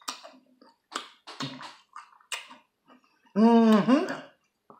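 Crisp crunching bites and chewing of a pickle soaked in jalapeño juice, then, about three and a half seconds in, a loud drawn-out wordless cry lasting under a second, a reaction to the pickle's heat.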